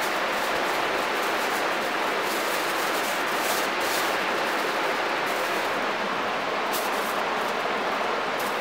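Steady rushing of river water running over rocks, an even unbroken noise.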